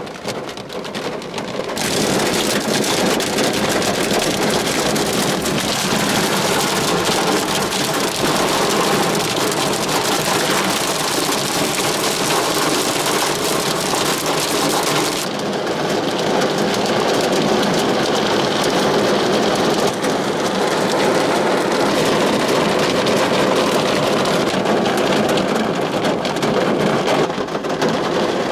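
Dense hail and rain pelting the car's roof and windshield, heard from inside the car as a loud, steady drumming. It swells to full strength about two seconds in.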